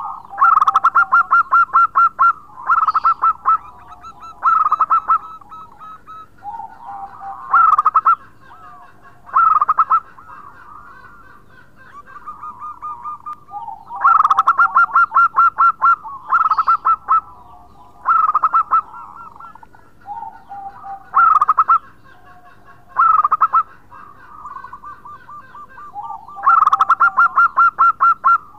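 Zebra dove (perkutut) singing: repeated bouts of rapid stuttering coos, each a few seconds long, with softer, lower coos between them.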